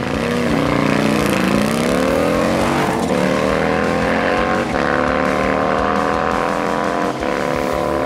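Bagger motorcycle's V-twin engine accelerating hard, climbing in pitch through each gear with three upshifts a second or two apart.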